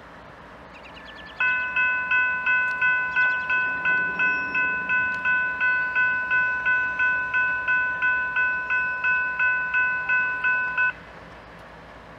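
Railroad grade-crossing warning bell ringing evenly at nearly three strikes a second, starting about a second and a half in and cutting off suddenly near the end: the crossing signal activated by an approaching train.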